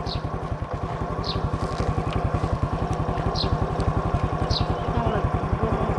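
Motorbike engine running steadily while riding, a fast, even putter of exhaust pulses heard from on the bike.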